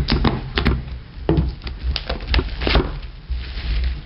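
Knife slitting and tearing the plastic shrink-wrap off a hard plastic first aid case: an irregular run of sharp crackles and knocks as the wrap is ripped and the case is handled on a wooden table.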